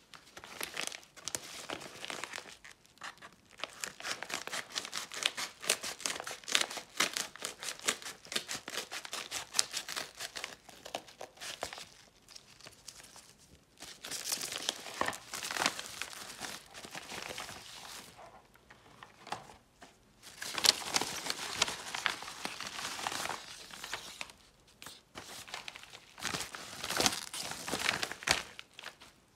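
Crinkling and tearing of a padded paper mailer with a bubble-wrap lining being torn open and handled, in bouts of dense crackle with short pauses between.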